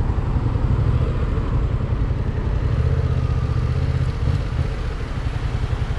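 Yamaha motorcycle engine running at low speed as the bike rolls slowly, a steady low pulsing rumble that eases slightly near the end.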